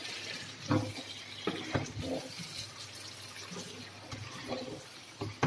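A wooden spatula stirs chicken pieces and chopped tomatoes in a frying pan with a wet, steady sizzle. The spatula knocks against the pan a few times, loudest near the end.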